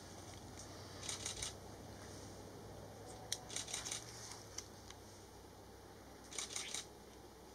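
Camera shutters firing in short rapid bursts: three bursts of several quick clicks each.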